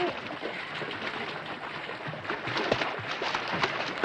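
Water splashing and lapping in a swimming pool, an irregular patter of small splashes.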